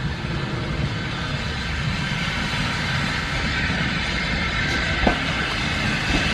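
Heritage railway passenger coaches rolling slowly along a platform: a steady rumble of wheels on rail that grows slowly louder as they come past, with a single sharp click about five seconds in.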